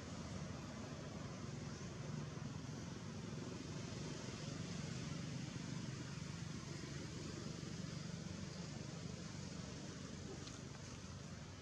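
Steady low outdoor background rumble with a constant hiss, unchanging throughout and with no distinct calls or knocks.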